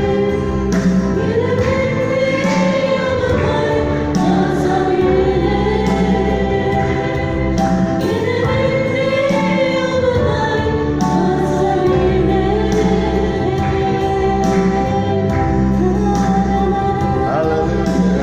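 Gospel choir music: voices singing a melody over a steady bass and beat.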